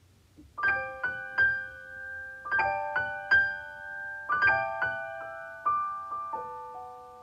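Solo piano playing a slow, gentle passage of chords. The chords begin about half a second in, each struck and left to ring, and the last one is held and fades away near the end.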